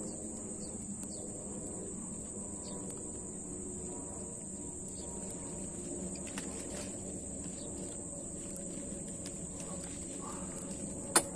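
Steady high-pitched insect drone over a low hum, with faint chirps near the end and one sharp click just before the end.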